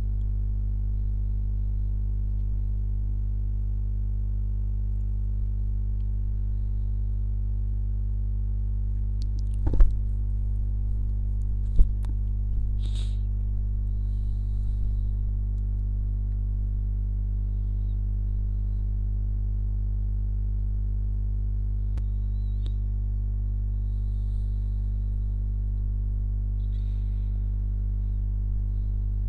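A steady, unchanging low hum made of many held tones. Two sharp clicks come about ten and twelve seconds in, with a few faint, brief high chirps after them.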